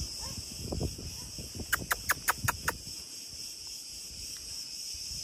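A steady, high-pitched chorus of insects buzzing in the summer heat. About two seconds in, a quick run of about six sharp clicking calls.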